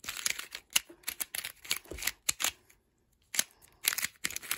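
A new Volt V2 Square-1 speed puzzle being turned by hand: quick runs of sharp plastic clicks as its layers snap round, with a short pause about two-thirds of the way through. The puzzle is still pretty tight out of the box.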